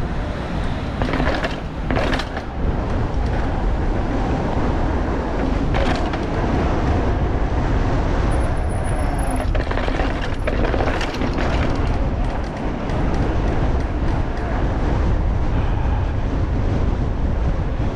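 Wind rushing over the microphone and tyre rumble from a mountain bike being ridden, with a few sharp knocks from the bike over bumps about a second in, at two seconds, at six seconds and at eleven seconds.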